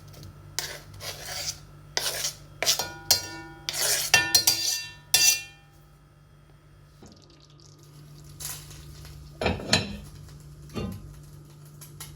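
Kitchenware clattering: a quick run of utensils clinking and knocking against dishware, some strikes ringing briefly, then a few sparser knocks later on, over a steady low hum.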